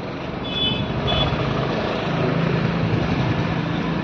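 Road traffic with vehicle engines running, two short high-pitched beeps about half a second and a second in, and a steady low engine hum setting in about halfway.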